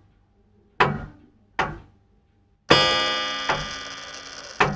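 Short musical sting of struck pitched notes, roughly one a second, each dying away quickly. A little under three seconds in comes a loud full chord that rings and fades slowly.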